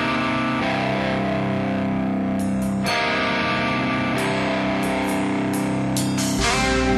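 Rock music on electric guitar: held, distorted chords changing every second or two, with a heavier low end coming in near the end.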